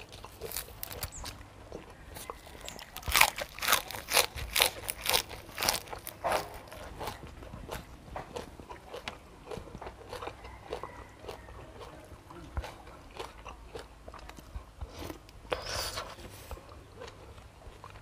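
Crunchy biting and chewing of raw vegetables and seafood, with a run of loud crunches about three to six seconds in, then softer, sparser chewing and another brief crunch near the end.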